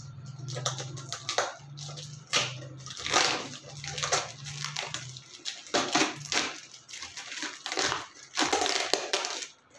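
Plastic wrap and packing tape being peeled and torn off a small cardboard parcel by hand, crinkling and ripping in irregular bursts.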